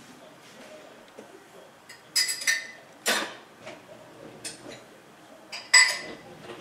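Sharp clinks of hard objects knocking together, each with a short ring: two close together about two seconds in, another about a second later, and the loudest near the end.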